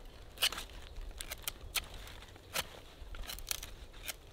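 A Citadel knife cutting into a fresh branch held in the hand: about a dozen short, irregular snicks as the blade bites and shaves the wood, the loudest about half a second in.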